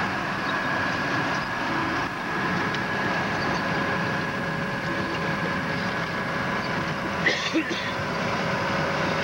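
Snowcat tracked snow vehicle running steadily as it drives through deep snow, with a few short, louder sharp sounds about seven seconds in.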